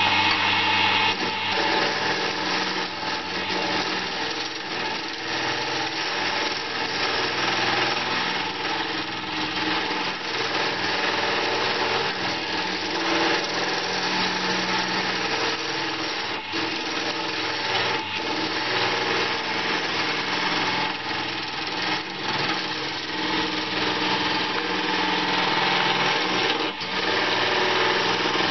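Electric wood lathe running steadily while a hand-held turning gouge cuts a spinning banksia seed pod, the tool scraping against the hard woody pod with scattered clicks.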